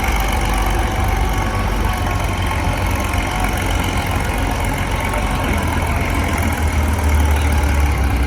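Farm tractor engine running loudly, a steady low rumble that grows a little louder about seven seconds in.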